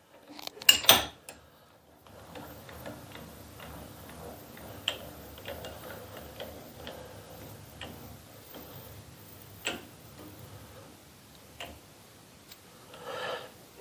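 A few sharp knocks about a second in, then scattered light clicks and taps at irregular intervals: metal tools and parts being handled at a milling machine during setup, with no machine running.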